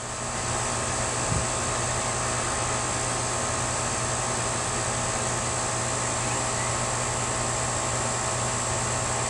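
Central air-conditioning unit running: a steady mechanical hum with fan hiss.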